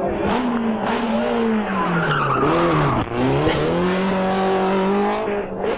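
A 1990s Group A rally car's engine on a tarmac stage. The revs fall for a few seconds as it slows, with a couple of short rises and dips along the way, then climb steadily as it accelerates hard.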